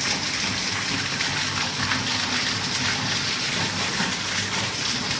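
Rainwater pouring down in a thick, steady stream and splashing onto concrete.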